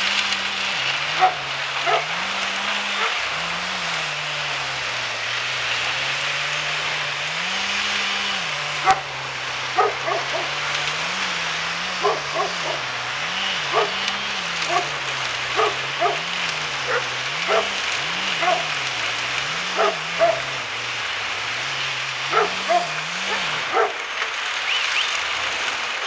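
A dog barking over and over in short barks, more often from about ten seconds in, over a steady background of machinery noise with a low drone that rises and falls in pitch.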